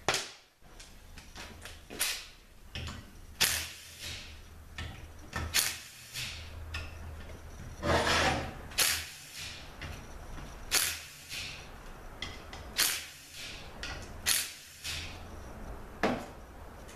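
Metal parts of an automatic transmission being handled during teardown: about a dozen sharp clanks and knocks as pieces are lifted out and set down, with scraping and sliding between them.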